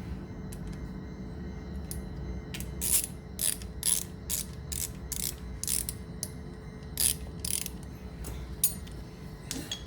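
Hand ratchet wrench clicking in a quick run of strokes, about two to three a second, as a bolt is wound in or out, with a few more clicks near the end.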